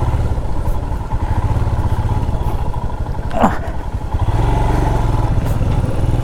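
Motorcycle engine running unevenly under load on a rough off-road trail, its low exhaust note pulsing with the throttle. About three and a half seconds in there is a brief pitched sound that rises and then falls.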